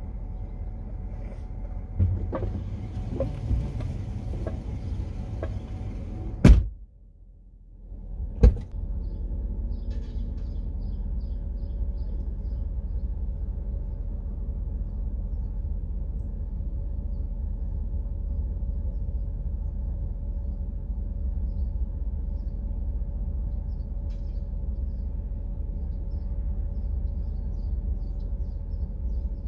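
Steady low rumble of an idling vehicle heard from inside its cabin. Two sharp knocks come about six and a half and eight and a half seconds in, with a few lighter clicks before them.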